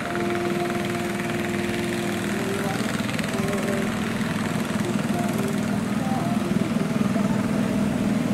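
Small long-tail boat engines running steadily, with a fast even pulse, growing somewhat louder from about two-thirds of the way in.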